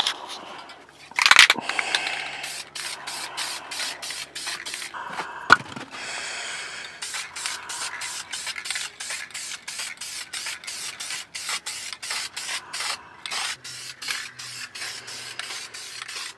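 Aerosol can of Dupli-Color Fabric & Trim spray paint hissing in many short, rapid bursts, about three a second at times, as it is sprayed onto car carpet. There is a sharp click about five and a half seconds in.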